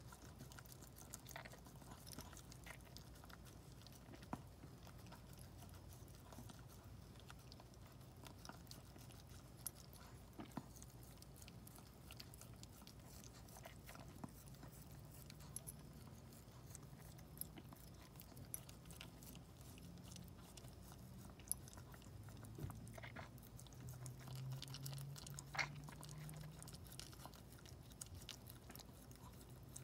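Maltese mother dog licking and nibbling a newborn puppy: faint, scattered wet licking and chewing clicks as she cleans it after birth.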